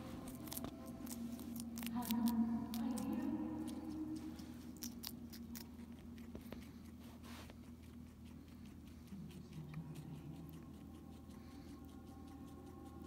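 Guinea pig chewing pieces of green pepper, with a run of crisp crunching clicks in the first few seconds that thins out after about seven seconds. Faint steady tones sit underneath.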